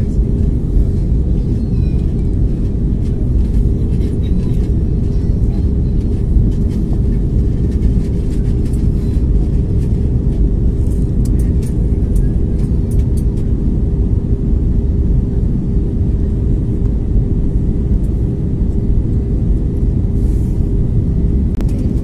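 Airliner cabin noise on the approach to landing: a loud, steady low rumble of engines and airflow with a steady hum running through it.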